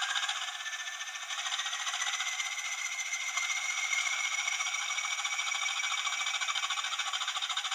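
Hornby TTS sound decoder playing the Class 20 diesel engine through the model's small speaker: the engine runs with a fast, even beat while a turbocharger whine rises in pitch over the first few seconds and then holds steady. The sound has no bass.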